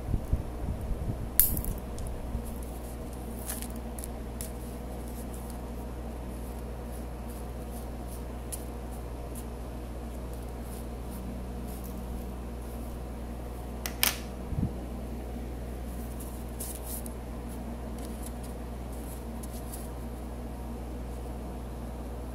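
Small clicks, taps and rustles as electronic components are pushed into a perforated circuit board and handled, over a steady low hum. Handling noise is busiest in the first couple of seconds, and a sharp click about fourteen seconds in is followed by a dull knock.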